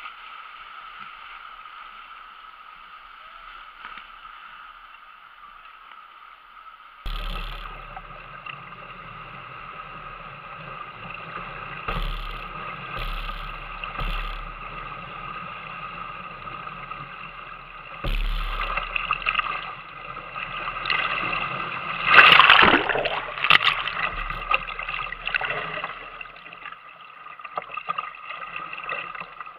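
Whitewater rapids rushing and splashing around a kayak, heard muffled through a waterproof action-camera housing, with a louder splash of water over the boat about two-thirds of the way through.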